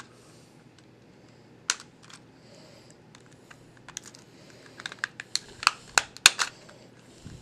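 Plastic clicks and snaps of a disposable Fujifilm camera's casing being pried apart by hand and with a screwdriver. There is a single click almost two seconds in, then a quick run of sharp clicks in the second half.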